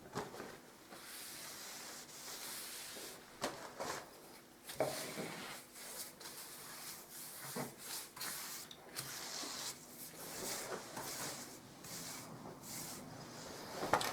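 Faint rubbing and rustling of wet wallpaper being handled and smoothed against the wall, coming and going, with a few light clicks.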